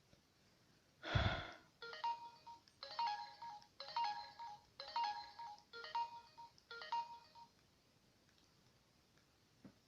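Samsung GT-C3010 mobile phone playing one of its built-in ringtones through its small speaker: six short beeping phrases, about one a second, stopping about two seconds before the end. They are preceded by a single thump about a second in, the loudest sound here.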